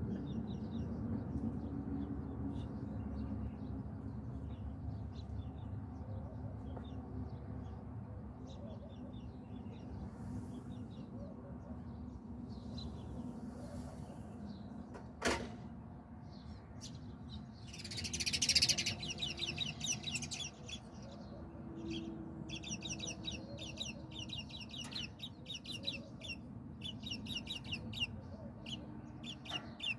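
Small birds chirping in quick, twittering series, busiest in the second half, over a steady low background rumble. A single sharp click sounds about halfway through.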